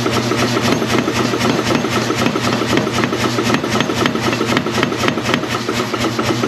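Power hammer running, hitting hot mild steel with rapid, even blows over a steady motor hum.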